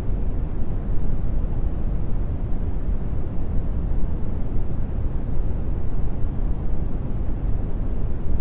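Steady brown noise: an even, deep rumbling hiss, strongest in the bass and fading toward the treble.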